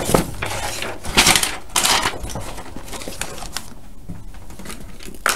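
Paper rustling as a page of a spiral-bound notebook is lifted and turned over, with three louder rustles in the first two seconds, then quieter handling and small ticks, and a short click near the end.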